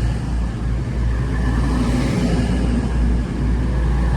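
Class 222 Meridian diesel multiple unit running through the station: its underfloor diesel engines and wheels make a steady low rumble.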